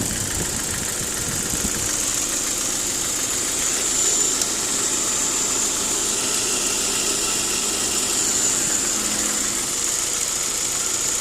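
Saab 9-5 Aero's turbocharged 2.3-litre four-cylinder engine idling steadily, with a constant high-pitched whine alongside it.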